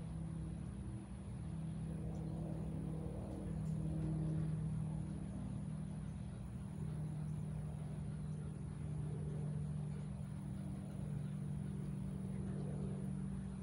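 A steady low mechanical hum from a motor running, holding one pitch and swelling and fading slightly in strength.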